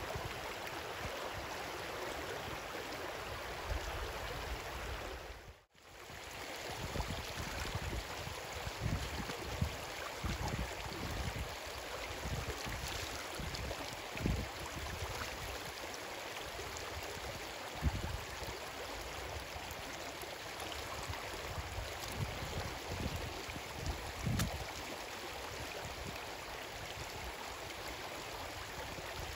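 Shallow rocky stream running over stones, a steady rush of water, with a few short low thumps. The sound drops out briefly about six seconds in.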